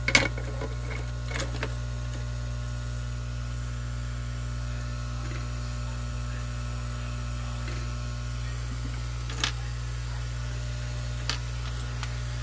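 A few small sharp clicks and taps of tweezers and tiny parts being handled at an electronics workbench, over a steady low hum.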